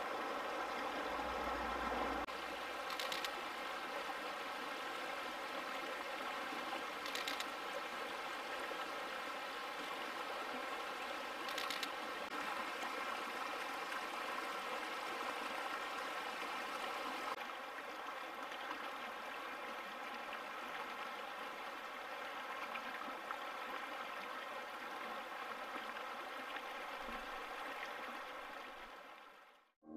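Steady rushing of a fast mountain river, with three brief high hissing sounds about 3, 7 and 12 seconds in. It fades out just before the end.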